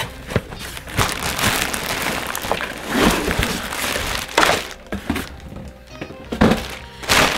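Cardboard box flaps and a clear plastic bag crinkling and rustling in irregular bursts, with sharp clicks and thunks, as a plastic-wrapped backpack is pulled out of its box and set down on a wooden table; background music plays underneath.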